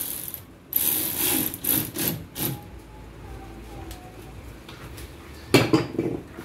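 Hand ratchet wrench on an extension clicking in short strokes as it works an engine mount bolt, with a louder cluster of clicks and knocks near the end.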